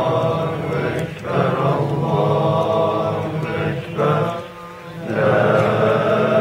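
A man chanting a melodic religious recitation in long, drawn-out held notes, with brief breaths about a second in and again near four and a half seconds.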